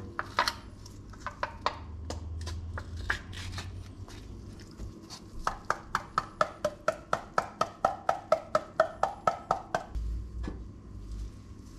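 A metal tuna can held upside down over a stainless steel bowl and knocked repeatedly to shake the tuna out: an even run of about four or five sharp knocks a second, each with a short metallic ring, lasting some four seconds before stopping with a dull thump. Earlier come a few scattered clicks and clanks as the can is drained at the sink.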